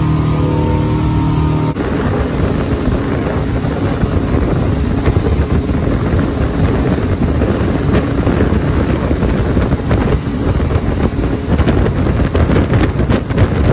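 Motorboat engine running under way, a steady hum with pitched tones for the first couple of seconds. After a cut about two seconds in, wind buffeting the microphone and rushing water take over, gustier near the end.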